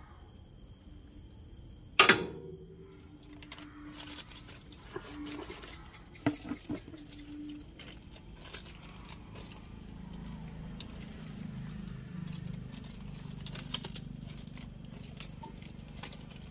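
A transformer silica gel breather's oil cup being handled: one sharp knock about two seconds in, then several light clicks and knocks a few seconds later. A faint steady high-pitched whine runs underneath, with a low rumble in the second half.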